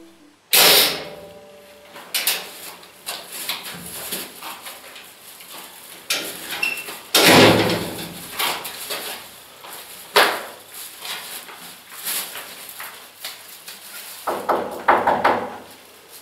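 A door banging about half a second in, followed by a string of knocks and clatters. The loudest come about seven seconds in and in a cluster near the end.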